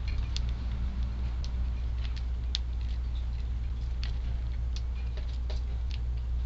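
Eurasian tree sparrows giving short, scattered chirps, a dozen or so quick cheeps, over a steady low rumble.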